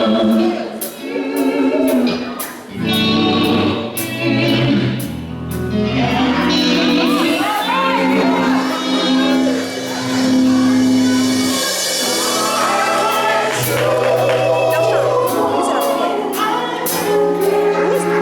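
Live gospel-style music: several voices singing held notes in harmony over a band, with drum hits in the opening seconds and again near the end.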